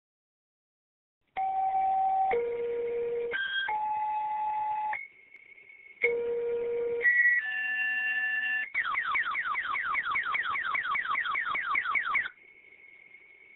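Fire dispatch alert tones over a radio: a run of steady pager tones, each about a second long and stepping to a new pitch, then a fast repeating rising sweep at about five a second for a few seconds. A faint steady high whine is left at the end.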